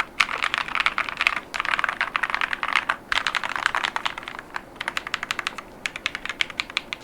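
Typing on an Epomaker Tide75 mechanical keyboard with Akko V3 Creamy Blue tactile switches and PBT MAO-profile keycaps. Fast runs of keystrokes with brief pauses between them, thinning to separate, slower keystrokes over the last couple of seconds.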